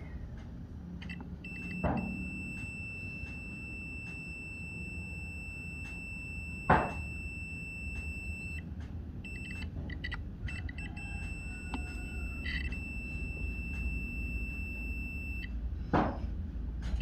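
Multimeter continuity buzzer giving a steady high-pitched beep while the probes rest across a component on the excavator controller board. The beep breaks into short stuttering beeps partway through, then holds steady again. A continuous beep marks a short, and the technician goes on to name capacitor C158 as shorted. Three sharp knocks are heard, the loudest about seven seconds in.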